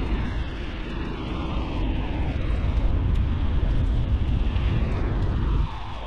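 Steady rush of wind buffeting the microphone of a camera on a moving bicycle, played back at double speed.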